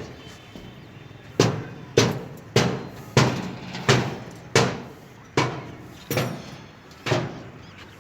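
A hammer striking steel about nine times in a loose, steady rhythm, each blow ringing briefly.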